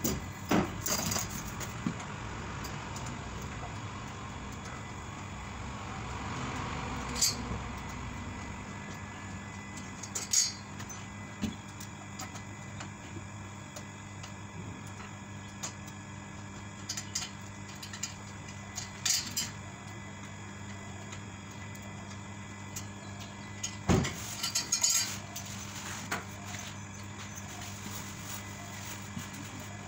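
Scattered metal clanks and knocks as a steel hand trolley frame is lifted, turned and laid down on a workbench, the loudest about 24 seconds in, over a steady background hum.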